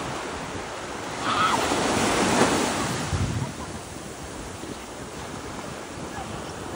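Sea surf washing, with wind buffeting the microphone; the noise swells louder from about one to three seconds in.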